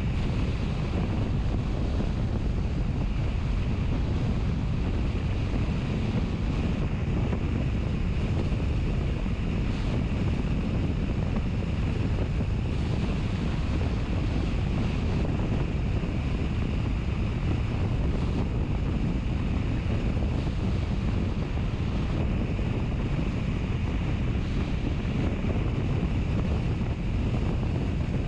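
Steady wind noise on the microphone: a continuous low rumble with an even hiss above it, unchanging throughout.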